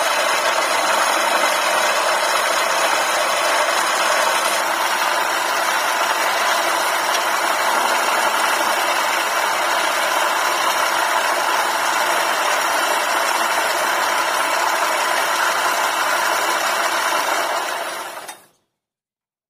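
Wood lathe running while a hand chisel cuts a spinning wooden spindle, a steady noise that fades out near the end.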